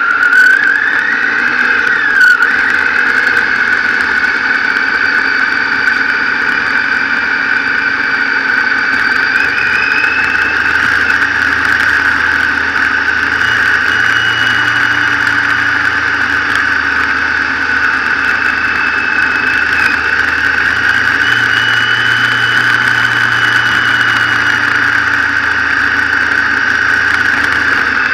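Motorcycle engine running while riding along, heard on the bike's own camera as a steady high-pitched whine with wind rush. The revs rise and then drop again near the start.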